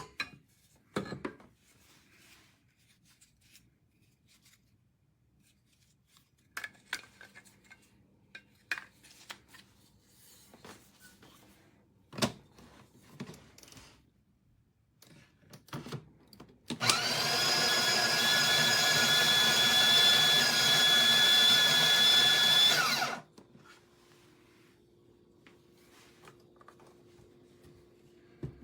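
Built-in burr grinder of a De'Longhi La Specialista espresso machine grinding for about six seconds: the motor whines up to speed, runs steadily, then stops abruptly. Before it come scattered clicks and knocks of the machine and its parts being handled.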